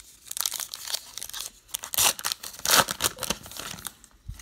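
Wrapper of a Topps Heritage baseball card pack being torn open by hand and crinkled, in a run of rough tearing bursts, loudest about two seconds and just under three seconds in.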